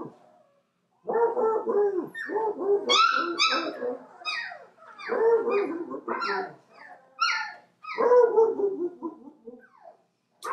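Three-week-old puppies yipping and whining: a quick string of short, high, falling yips one after another, starting about a second in.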